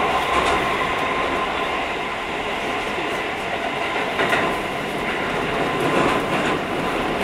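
Keio 5000-series electric commuter train running, heard from inside a passenger car: steady rolling and running noise with a thin steady hum, and a few faint clicks of the wheels over rail joints about four and six seconds in.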